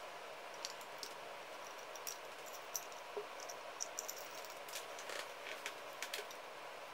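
Small clicks and light rustling from the handle housing, switch and wiring of an old power drill being turned over and handled: scattered sharp ticks, more of them toward the end, over a steady hiss.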